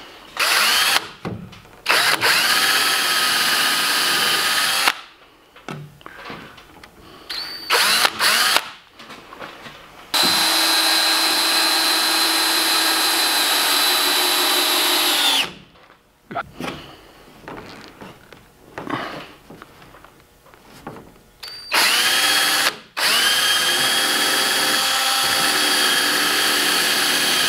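DeWalt 18V XRP cordless drill driving screws into plywood trailer framing, in about six separate runs: each time the motor whine climbs in pitch, holds steady and stops, the longest run lasting about five seconds near the middle. At least one screw meets something hard in the wood, which he takes for a knot.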